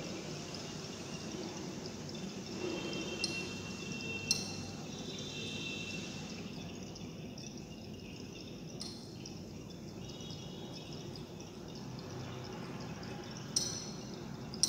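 Liquid being swirled in a glass conical flask during an EDTA titration, with a few light glass clinks as the flask is moved under the burette.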